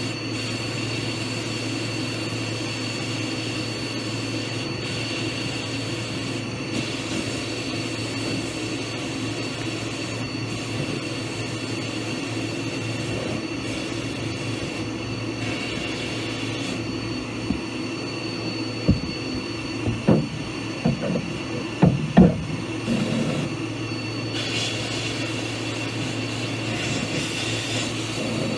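Steady hum of a power tool's electric motor running, with a cluster of knocks and clatter about two-thirds of the way through.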